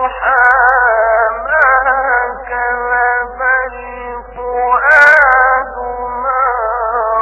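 A man reciting the Quran in the melodic, drawn-out tajwid (mujawwad) style, holding long high notes that waver and turn in ornamented phrases. A brief sharp crackle about five seconds in, over a steady low hum.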